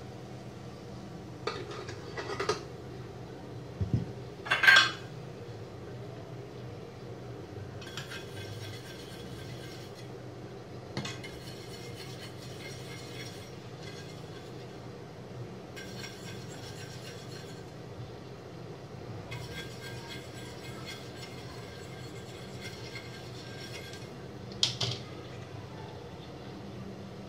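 Aluminium idli stand plates clinking and knocking against each other and the metal stand, a few scattered clinks with the loudest, ringing one about four and a half seconds in and another near the end, over a low steady hiss.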